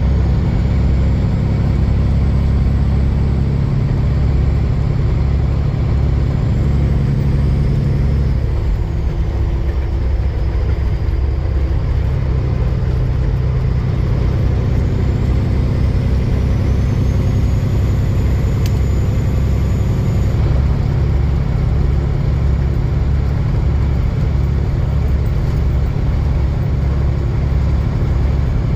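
Semi truck's diesel engine running steadily, heard from inside the cab. Its pitch shifts for a few seconds around the middle, and a faint high whine rises and falls at times.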